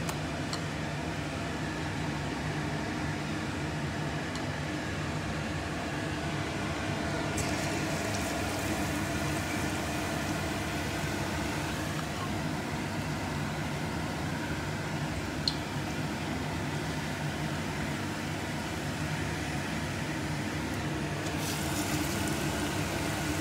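A steady mechanical hum, with soft wet squelching as brown bread slices are worked through thick gram-flour batter by hand. Near the end, hot oil starts to sizzle as a battered slice goes into the kadhai.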